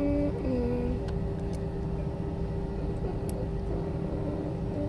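Steady low cabin rumble inside an Airbus A321 moving slowly on the ground or parked at the gate, with a constant hum over it. A few faint wavering tones come through in the first second.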